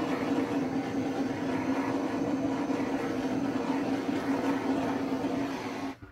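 Handheld blowtorch flame hissing steadily with a low hum, played over wet acrylic paint; it cuts off suddenly near the end.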